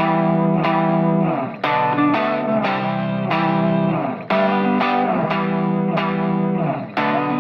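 Background music: an electric guitar with effects playing a repeating phrase of picked notes, the phrase coming round about every two and a half seconds.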